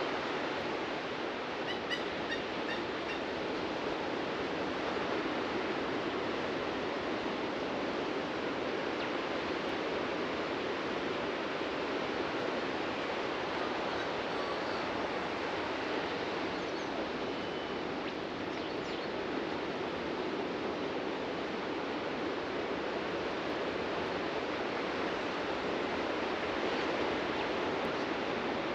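Steady wash of ocean surf on a beach, an even roar with no single wave standing out. A few faint bird chirps come about two seconds in.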